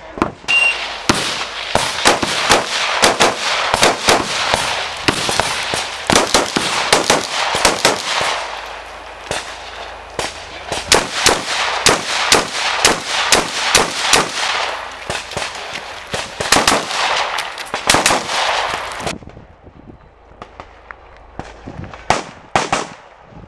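A short electronic shot-timer beep, then an AR-15-style rifle firing many shots in fast strings and pairs, with brief lulls while the shooter moves between positions. The firing stops about nineteen seconds in, and a few more shots come near the end.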